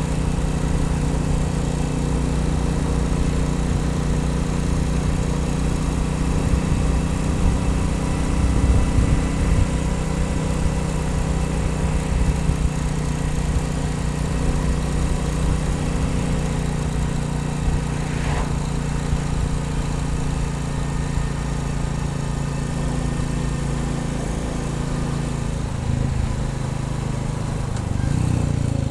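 Royal Enfield Bullet 350 single-cylinder engine running steadily under way at road speed, with a brief rise in pitch near the end.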